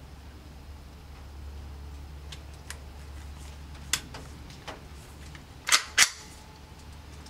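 Gunshots at a shooting range: a few faint sharp reports, a louder one about four seconds in, and the two loudest in quick succession, about a third of a second apart, near six seconds, over a steady low hum.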